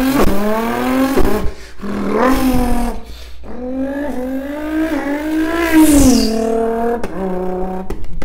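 A man's voice imitating a Ford GT's twin-turbo V6 revving: several rising revs, then a long climbing rev. About six seconds in comes a high falling whistle, followed by a few quick clicking pops near the end.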